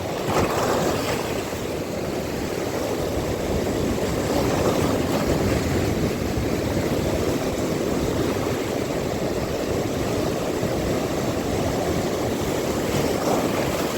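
Steady rushing of wind and sea waves, with wind buffeting the microphone.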